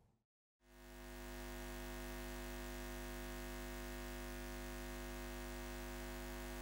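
A steady electronic hum of several held tones fades in about half a second in and then holds level without change.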